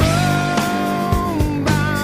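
Background rock music: a sustained lead line bending slowly in pitch over steady bass and a regular drum beat.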